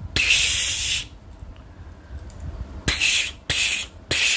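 A person making hissing 'pssh' whoosh sounds with the mouth: one long burst near the start, then three short ones in the second half. These are play sound effects for a toy figure flying.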